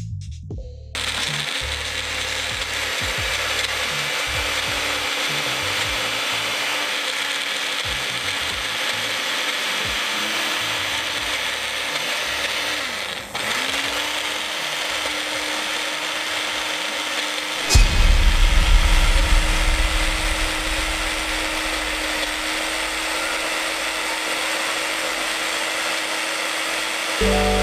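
Electric blender running with a steady whirring motor hum. It cuts out for a moment about halfway and spins back up, and a louder low churning rumble sets in about two-thirds of the way through.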